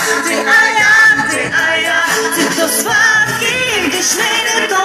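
Live pop song played loud over a PA, with a woman's voice singing the melody over the backing track and no clear words.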